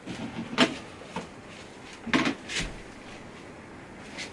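A few light knocks and clicks of computer parts and tools being handled and set down on a work surface.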